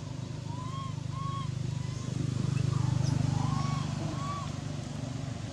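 Low hum of a passing motor vehicle, swelling about two seconds in and then fading. Over it comes a string of short, arched chirping calls.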